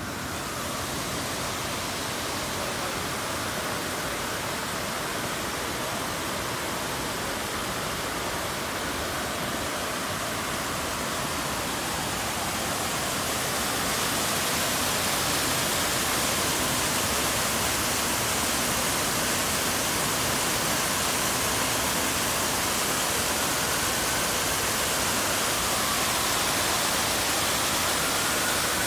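A plaza fountain's many vertical water jets splashing down into the pool: a steady rush of falling water that grows louder about halfway through.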